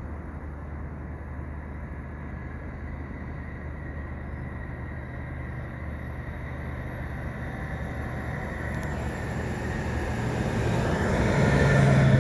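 Train approaching and pulling into a station, its rumble growing steadily louder over the last several seconds.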